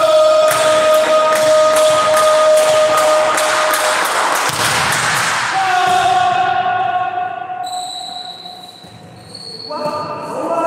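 Background music: long held notes over a quick steady beat, the beat dropping out about four seconds in, with higher held notes near the end.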